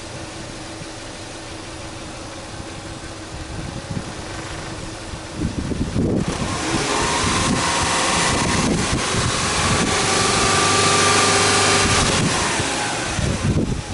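Subaru Legacy 2.5GT's turbocharged flat-four (boxer) engine idling, then, about five seconds in, revved with no load and held. The sound builds for several seconds before easing off near the end.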